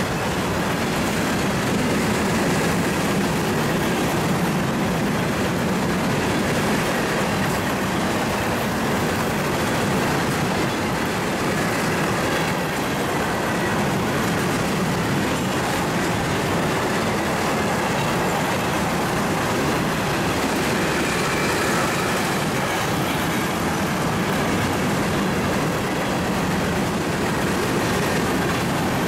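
Empty covered hopper cars of a freight train rolling past at speed: steady, unbroken noise of steel wheels running on the rails.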